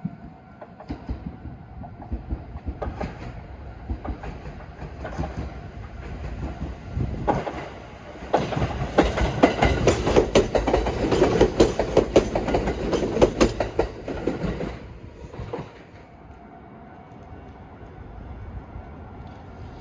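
A train passing close by, its wheels clattering rapidly over the rail joints. The sound builds, is loudest for about six seconds in the middle, then fades away.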